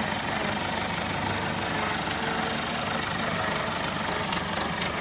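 Forklift engine running steadily as the forklift drives, with a few brief clicks near the end.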